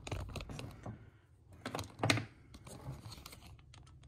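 Scattered light clicks and knocks of small parts and tools being handled on a metal-and-wood workbench, with one louder knock about two seconds in.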